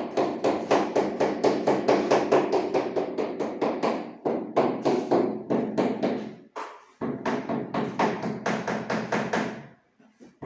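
Rapid, even tapping with a mallet on a large porcelain floor or wall tile, about four blows a second, to bed it into the adhesive. The taps pause briefly twice and stop near the end.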